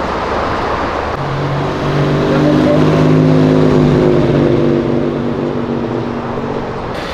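Classic Chevrolet Opala coupé driving past slowly, its engine giving a steady, deep note that swells as it comes close about two seconds in and fades as it moves off, over background traffic noise.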